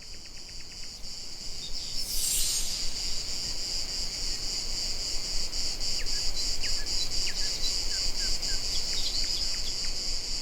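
Crickets chirping steadily with short, scattered bird chirps, a nature sound-effect ambience; a brief rushing swell about two seconds in.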